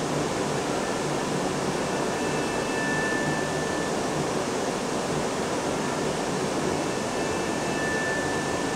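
Steady rushing noise from a video installation's soundtrack, with a faint thin high tone that comes and goes a few times.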